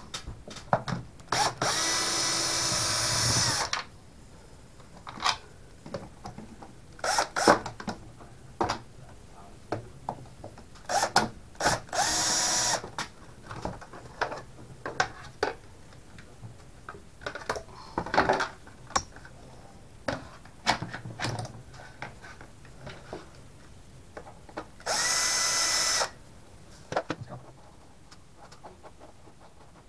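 Compact DeWalt cordless drill driver running in three short spells, backing out the screws that hold an old bathroom extractor fan: the first about two seconds long, the later two about a second each. Between them come scattered clicks and knocks of the plastic fan housing being handled and pulled off the wall.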